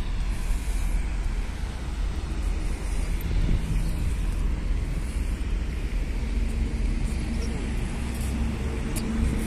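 Steady outdoor traffic noise with a low rumble of wind on the microphone; a faint steady engine hum joins about six seconds in.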